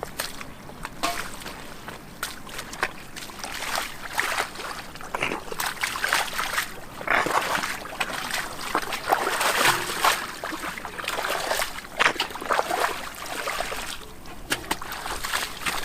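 Muddy water splashing and sloshing as hands grope through it, with irregular trickles and splatters, busiest in the middle.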